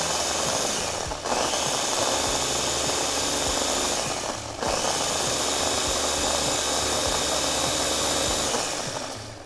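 Ninja food processor's motor running with its blades grinding granulated sugar and cornstarch into powdered sugar. It runs in three long pulses with two short breaks, about a second in and about four and a half seconds in, then winds down near the end.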